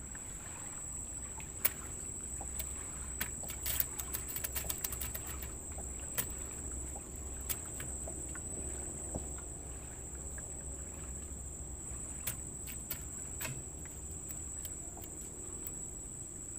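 A steady high-pitched chorus of insects chirring at a river's edge, over a low steady rumble. Scattered small clicks and taps come through it, bunched together a few seconds in.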